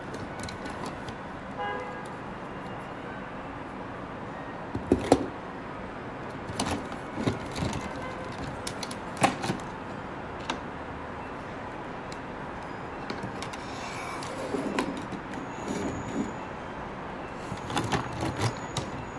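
Toys being handled, with scattered knocks and clicks as they are picked up and set down, over a steady hiss.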